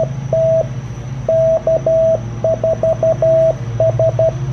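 Morse code sidetone from an Icom IC-703 transceiver's memory keyer: a single clear tone keyed in dots and dashes, sending a stored 'TEST' message followed by the call sign K4SFC. A steady low hum runs underneath.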